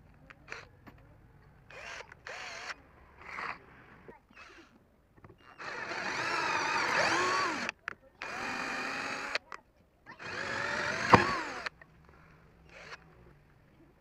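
Cordless drill boring a hole in a metal plate held in a vise. It starts with a few short bursts, then runs three times for one to two seconds each, its pitch wavering as the bit loads up. A sharp click comes near the end of the last run.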